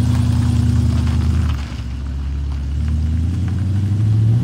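Morgan Plus 8's Hesketh race-tuned V8 engine pulling away under throttle. The note drops briefly just under two seconds in, then climbs again toward the end.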